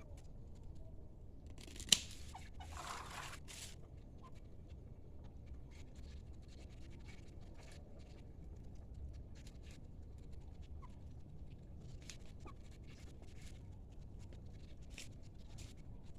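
Dry date palm fronds being cut away by hand: a sharp snip about two seconds in, then a second or so of rustling dry leaves, followed by scattered small snips and rustles.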